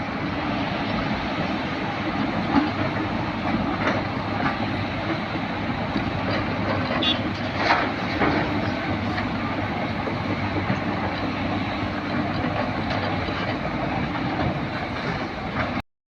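Excavator's diesel engine running steadily under working load, with a few sharp metallic clanks from the machine. It cuts off suddenly near the end.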